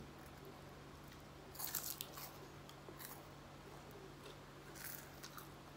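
Faint, crisp crunching bites and chewing of a chocolate-filled wafer stick, in short clusters about a second and a half apart.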